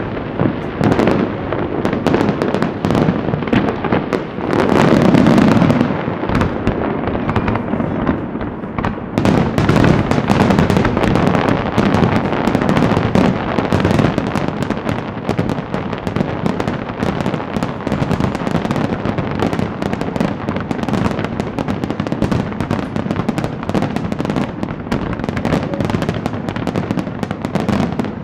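A large fireworks display: aerial shells bursting in rapid, overlapping booms under a continuous crackle, with no gaps. The booms are heaviest about four to six seconds in, and from about nine seconds on the dense sharp crackling takes over.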